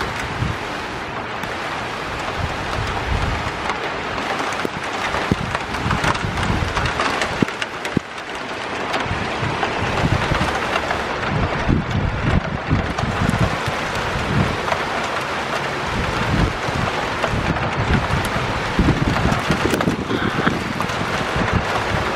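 A steady rain shower falling on wet pavement, with irregular gusts of wind rumbling on the microphone.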